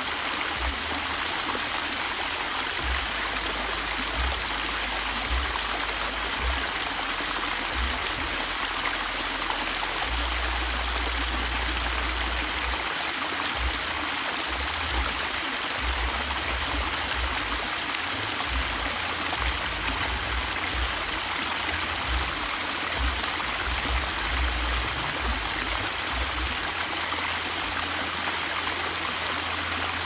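Small waterfall spilling over a stone ledge into a pool: a steady, unbroken rush and splash of falling water.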